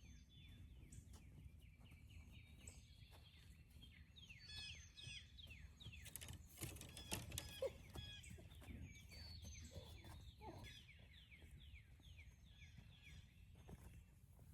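Faint outdoor birdsong: many short down-slurred chirps repeating over a steady low background hiss, with a few soft clicks about halfway through.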